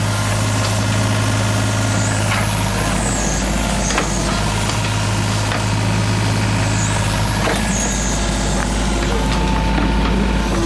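An engine running steadily with a constant low hum, with a couple of short knocks and two faint high whistling glides over it.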